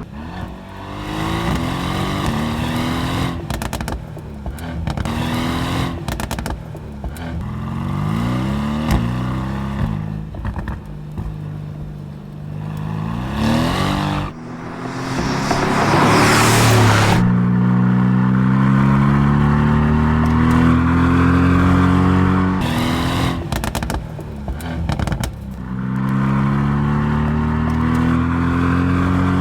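Mercedes-AMG GT R's twin-turbo 4.0-litre V8 driven hard, its note climbing in pitch again and again as it pulls through gear after gear. Around the middle there is a loud rushing burst, and the later climbs are longer.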